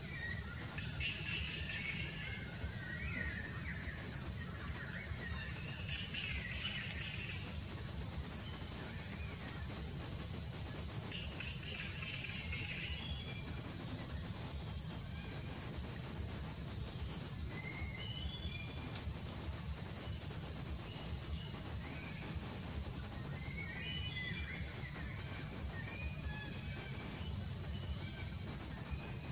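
A steady, high-pitched drone of insects in the forest, with scattered short bird chirps coming and going over a low background rumble.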